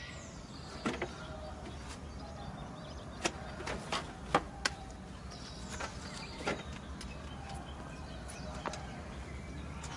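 About half a dozen short, sharp knocks and clicks, spaced irregularly over a steady low hum: someone working on a broken-down car.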